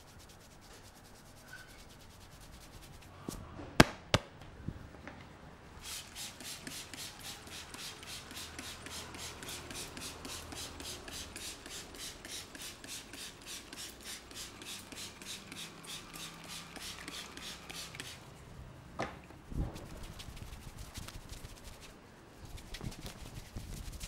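Plastic trigger spray bottle pumped fast, about five hissing squirts a second for several seconds, misting water onto hair. Two sharp clicks come a few seconds before it.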